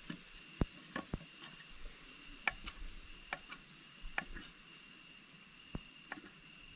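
A knife cutting a ham sausage: sharp knocks at irregular intervals, about ten in all, some with a dull thud behind them.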